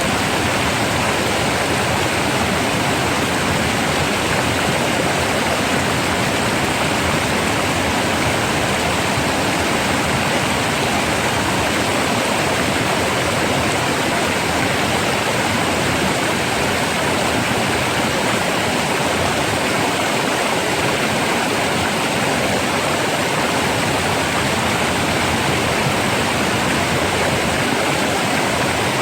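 Rough, fast-flowing water running steadily, a full, even rush with no breaks or changes.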